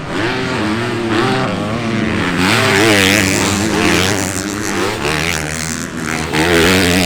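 Several motocross bikes racing together, their engines revving up and falling back, with pitches rising and dropping over one another.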